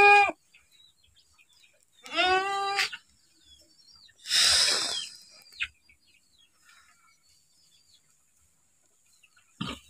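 Young goat bleating in short, high calls: one ending just after the start and another about two seconds in, each under a second long. About four seconds in there is a short, breathy rush of noise about as loud as the calls.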